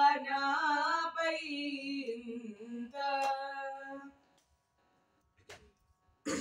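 A girl and a boy singing together the last phrase of a Carnatic varnam in raga Todi, in long held, sliding notes, with a single hand clap keeping the tala; the singing stops about four seconds in. A faint tap and a short rustle follow near the end.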